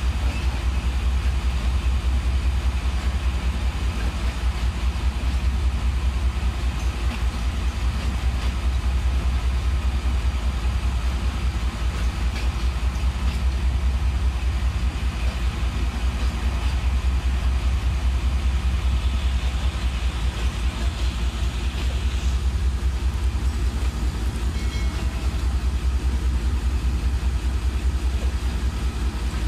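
Pakistan Railways passenger coaches rolling slowly along the adjacent track with a steady low rumble from the running gear, with no letup.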